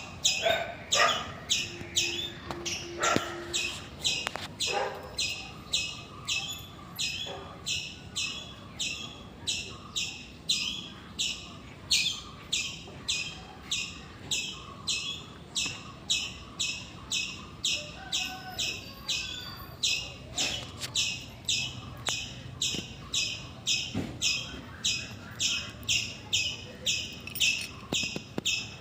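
Forest ambience dominated by a high-pitched pulsing call, repeating steadily about twice a second, with a few fainter, lower chirps now and then.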